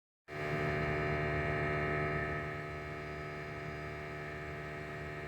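Steady electrical hum made of many even tones, starting abruptly and dropping slightly in level about two and a half seconds in.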